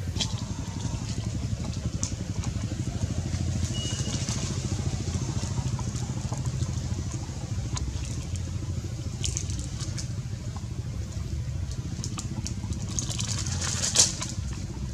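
Crinkling and clicking of a clear plastic bottle as a young macaque grips and bites it: scattered crackles, the sharpest about a second before the end. A steady low rumble runs underneath.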